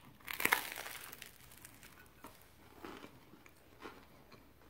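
A bite into a carne asada torta on a toasted, crusty bread roll: the crust crackles and crunches about half a second in, followed by a few quieter chewing sounds.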